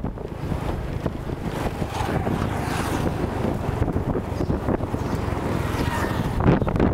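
Wind buffeting the microphone of a camera on a moving bike: a steady rushing noise, with vehicle running noise underneath.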